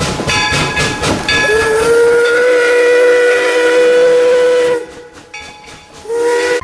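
Steam locomotive sound: quick chuffs of steam at about four or five a second, then one long steady whistle blast over hissing steam that cuts off about three-quarters of the way through. A short second whistle follows near the end.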